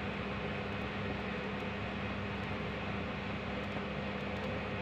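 Steady background hum with an even hiss and no distinct events.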